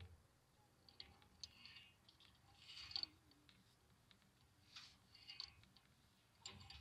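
Near silence with faint, scattered rustles and clicks of a rope being handled and pulled through a small pulley, the loudest about three seconds in.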